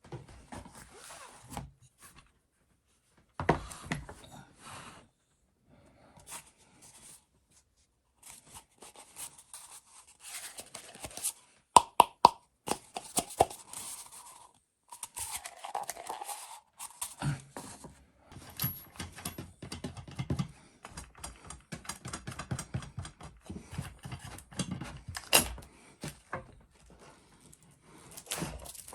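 Hand-work noises from repairing a two-handed fly rod's rear grip: intermittent scraping, rustling and handling thunks, with a quick run of sharp taps about twelve seconds in.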